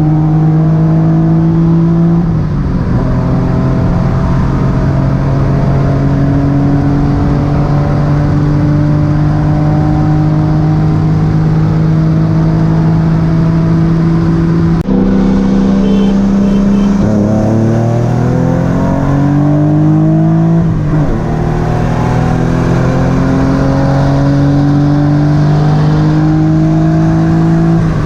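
Car engine pulling hard under full throttle in a roll race. Its pitch climbs slowly through each gear and drops sharply at several upshifts. A second engine's rising note overlaps for a few seconds in the second half.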